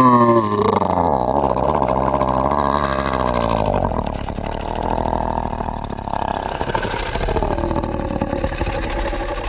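Monster growl sound effect: a pitched roar that wavers and falls in the first second, then a long, steady, rattling growl.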